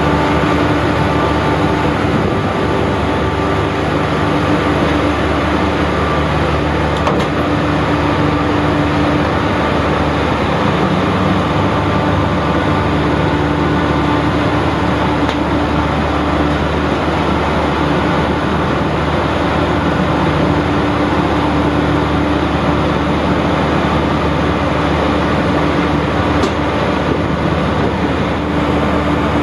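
The high-speed catamaran's diesel engines running steadily, a loud even machinery noise with a constant hum that does not rise or fall.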